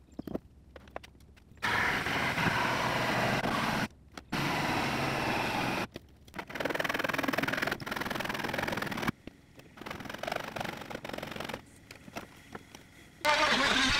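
Handheld jigsaw cutting sheet plywood in several separate runs of a second or three each, with short pauses between. Near the end a louder power tool with a steadier whine starts up.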